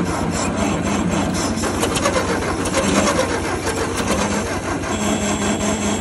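1956 Ford 800 tractor's gasoline engine cranking on its starter with a fast, even pulse, nearly catching but not starting.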